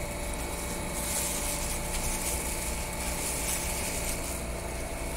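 Air-conditioner outdoor unit running with a steady hum, a hiss growing louder about a second in. Its compressor, which had lost continuity in the extreme heat, is running again after being packed with ice to cool it.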